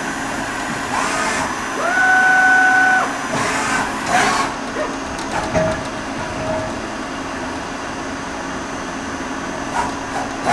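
YCM Supermax CNC vertical machining center running its program: a steady mechanical hum with axis drive whines that rise in pitch and then hold as the table moves. The loudest whine comes about two seconds in and lasts about a second, and shorter whines and a few clicks follow.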